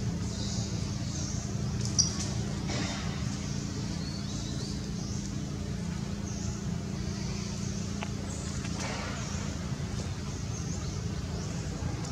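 Outdoor ambience: a steady low rumble, with faint high-pitched buzzing or calls repeating about once a second, and one sharp click about two seconds in.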